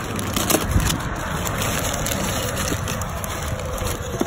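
Gasoline flowing through a pump nozzle into a car's fuel tank, a steady rushing, with a couple of soft knocks about half a second in.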